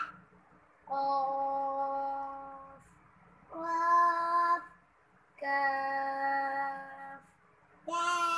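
Two children chanting Arabic alphabet letter names in a drawn-out, sing-song recitation: four long held notes with short pauses between them.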